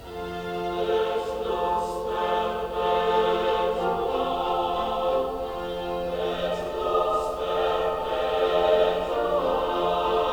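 Choral music with sustained voices, played back through a Samsung Bottle Speaker wireless speaker.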